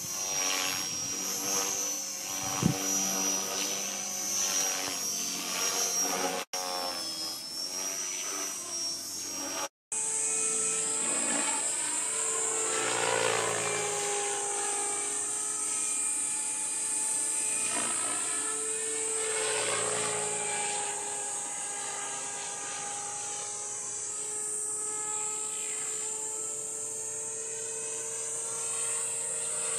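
Radio-controlled model helicopter flying overhead: a steady high-pitched whine of its motor and rotor that slides up and down in pitch as it passes back and forth. The sound drops out briefly twice.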